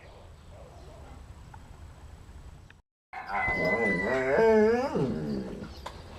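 Two dogs, a Rhodesian Ridgeback and a small white dog, play-wrestling: after about three quiet seconds and a brief cut-out, one gives a loud, drawn-out wavering vocalization lasting about two seconds, followed by softer scuffling and grunts.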